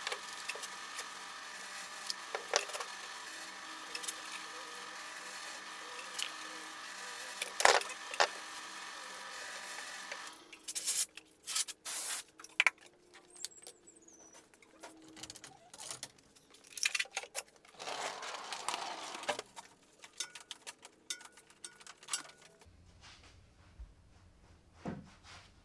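Steady hum of a workshop machine, with a few sharp hammer knocks on wood, the loudest about eight seconds in. The hum stops abruptly, giving way to scattered clicks, taps and scraping of bar clamps and wood being handled.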